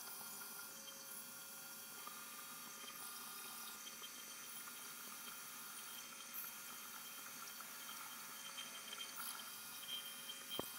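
Milling machine spindle running with a 60-degree chamfer mill cutting a chamfer into a drilled mounting hole: a steady hiss with a faint steady whine, and a click near the end.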